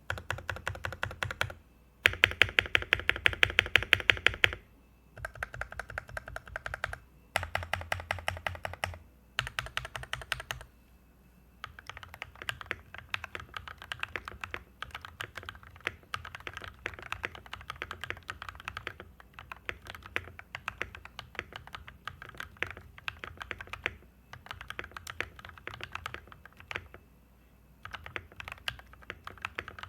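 Sades Kunai mechanical keyboard with lubed Gateron Yellow linear switches and MT3 keycaps being typed on. Over the first ten seconds or so there are several short bursts of rapid, evenly spaced presses, the loudest about two seconds in. After that comes steady continuous typing.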